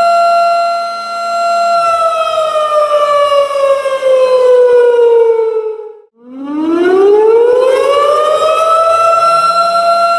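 Tornado warning siren: a steady high tone that slides down in pitch over about four seconds, cuts out almost completely around the middle, then winds back up to the same steady tone.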